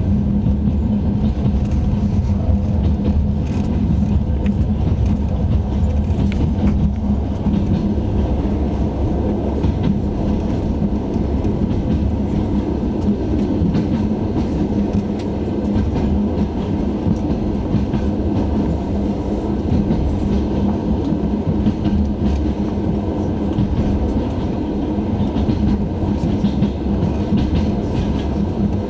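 Passenger train in motion, heard from inside a carriage: a steady rumble of wheels on rails, with faint clicks now and then.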